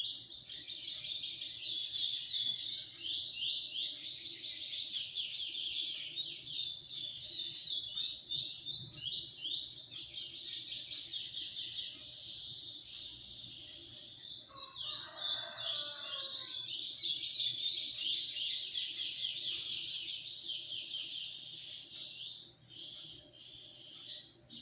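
Songbirds singing: long runs of rapid, high, twittering trills with short pauses toward the end. A lower, descending call cuts in briefly about fifteen seconds in.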